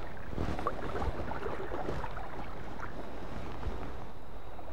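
Steady rushing of river water flowing past wading legs.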